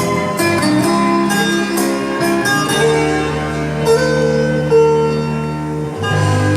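Instrumental karaoke backing music with sustained notes and a plucked-string, guitar-like melody, without singing.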